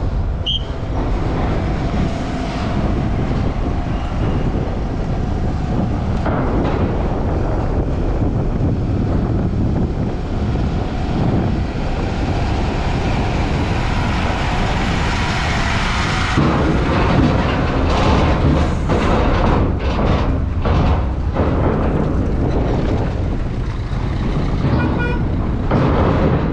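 Heavy diesel lorry and cars driving off a ferry and up the ramp: steady engine and traffic noise, growing a little louder and busier about two-thirds of the way in.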